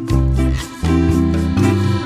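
Instrumental background music, with a bass line and melody notes changing several times a second.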